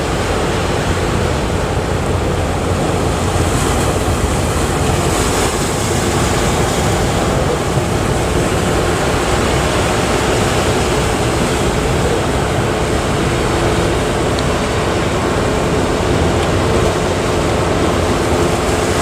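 Surf at a river mouth: a continuous, loud rush of breaking waves, with a faint steady hum underneath.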